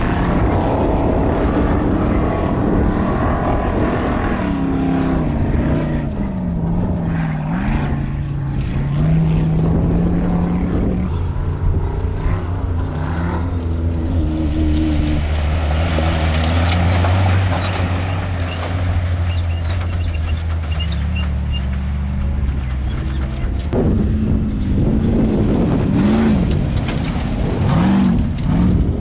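Off-road race vehicle engines running hard, their pitch rising and falling as they rev and shift. A steadier low engine drone sits in the middle stretch. The sound changes abruptly about eleven seconds in and again near twenty-four seconds, as at cuts between shots.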